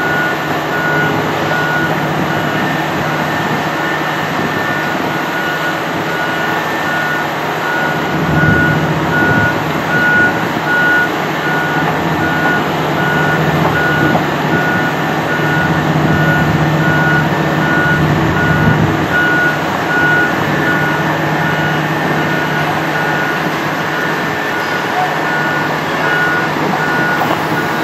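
Manitowoc crawler crane travelling forward under load, its diesel engine running steadily and swelling for several seconds midway, while its travel alarm beeps about once a second.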